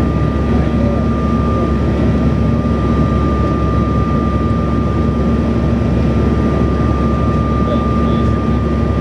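Steady cabin noise inside a Bombardier CRJ700 regional jet: the drone of its rear-mounted GE CF34 turbofans and rushing air, with a constant thin whine over the top.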